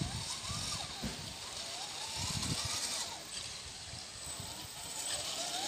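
Electric motors of RC scale crawler trucks whining, the pitch rising and falling again and again as the throttle is worked, with a light hiss from the drivetrain and tyres.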